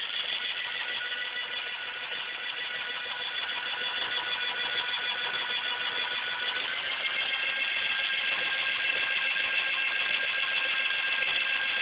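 Electric bike conversion motor (Cyclone kit) running under throttle with a steady high whine that grows louder and steps up in pitch about two-thirds of the way through as it is brought up progressively to higher speed.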